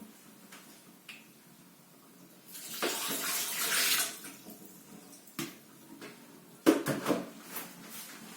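Kitchen tap running for about a second and a half while vegetables are washed, then a few short knocks and clatters, the loudest a sharp knock near the end.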